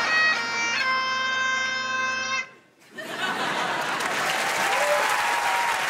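Bagpipes playing, with a steady drone under a changing chanter melody, stop abruptly about two and a half seconds in. After a brief silence a studio audience applauds.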